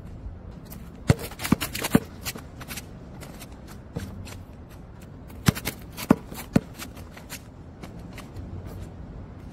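Basketball bouncing on an outdoor hard court: three bounces about half a second apart, about a second in, and three more about five and a half seconds in, with lighter scuffs and ticks between.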